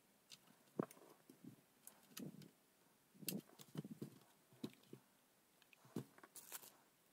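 Faint scattered clicks and light knocks: small tools and the hot air station's plastic front panel being handled during assembly.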